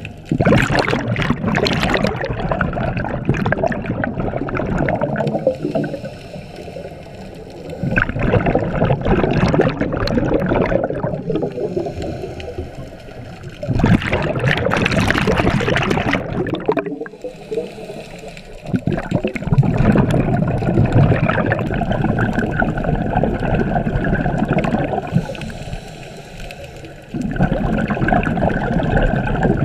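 Scuba diver breathing underwater through a regulator: five long, bubbling rushes of exhaled air, one every five to six seconds, with quieter stretches of inhaling between them.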